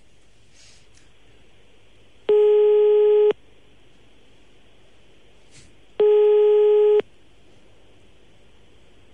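Telephone ringing tone heard down the calling line: two one-second beeps of a steady low tone about four seconds apart, over faint line hiss, as the called phone rings unanswered.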